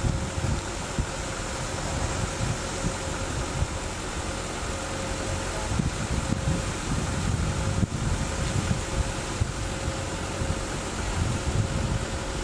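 Steady rushing wind buffeting the camcorder microphone, over the low rumble of surf breaking on a rocky shore, with a faint steady hum running beneath.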